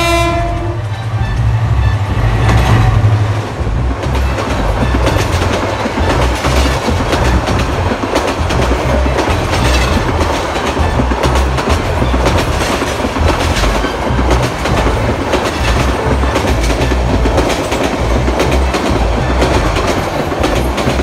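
Intercity passenger train passing close by on the next track. Its horn sounds briefly at the start and the locomotive's low engine rumble lasts the first few seconds. Then the coaches' wheels clatter steadily over the rail joints.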